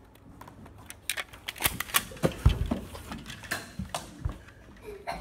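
A quick, irregular run of sharp plastic clicks and knocks with a few dull thumps, from a foam-dart toy blaster and the phone filming being handled and bumped.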